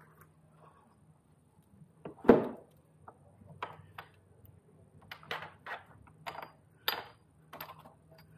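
Metal parts knocking and clinking as the Talaria Sting's gearbox is worked into place against the motor: one loud knock about two seconds in, then a run of smaller irregular taps and clinks.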